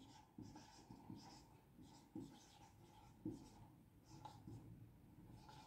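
Marker pen scratching faintly on a whiteboard in short, separate strokes as letters and symbols are written.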